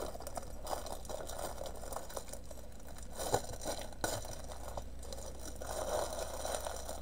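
Plastic packaging of a small diamond painting kit crinkling and rustling as it is handled, with a few sharper clicks about three and four seconds in.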